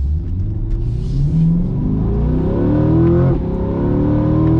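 C8 Corvette's 6.2-litre V8 accelerating hard in sport mode, heard from inside the cabin, rising steadily in pitch under load. The eight-speed dual-clutch gearbox makes two instant upshifts, one about three seconds in and another at the very end, each a sudden drop in revs before the engine climbs again.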